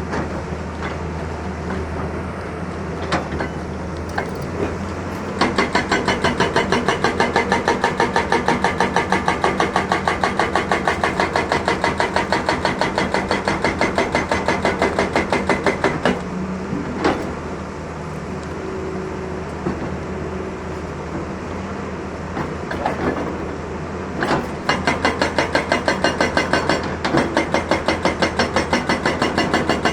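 Excavator's diesel engine running steadily, with two long spells of rapid, even knocking, several knocks a second.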